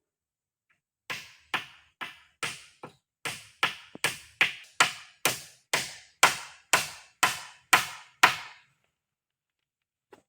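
A run of about seventeen sharp strikes, roughly two a second, each dying away quickly, then they stop.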